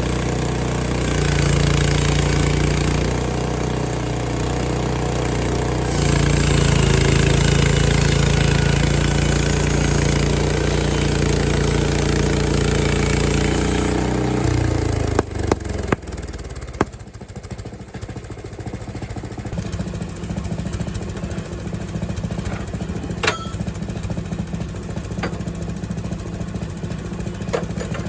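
Frontier OS23 bandsaw sawmill's gas engine running at high speed while the band blade cuts through a pine log, with a steady hiss over the engine. About halfway through, the engine suddenly drops to idle, with a few sharp clicks and knocks.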